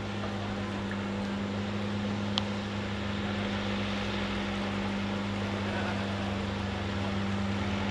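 Motorboat engine running with a steady drone, and a single light click about two and a half seconds in.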